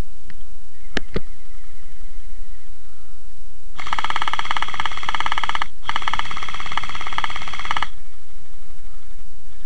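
Electric gel blaster firing two full-auto bursts of about two seconds each, back to back: a rapid rattle of shots over the gearbox motor's whine. Two sharp clicks come about a second in.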